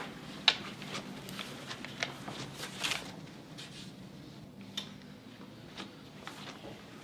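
Movement sounds of a person getting up and walking across a small classroom: a sharp knock about half a second in, then scattered light clicks, steps and rustles that thin out after about three seconds, over a faint steady hum of room tone.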